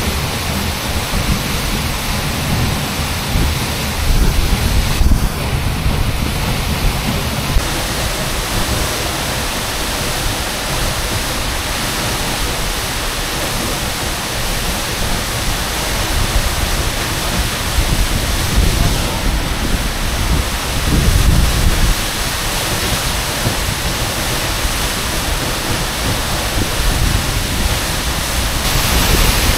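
Seljalandsfoss waterfall heard from close behind the falling curtain of water: a steady, loud rush of water pounding into the plunge pool, heavy in the low end. Deeper rumbling swells come in about four seconds in and again about twenty seconds in.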